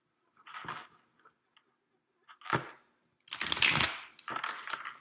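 Tarot cards being handled and shuffled: short rustles of the deck, then a longer, louder stretch of shuffling starting about three and a quarter seconds in.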